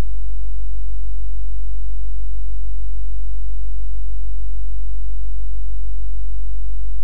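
A loud, steady low-pitched hum that does not change at all.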